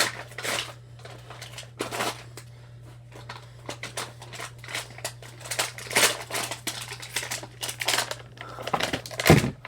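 Toy packaging being opened by hand: irregular rustling, crinkling and tearing of packing material, with a few sharper, louder crackles, over a steady low hum.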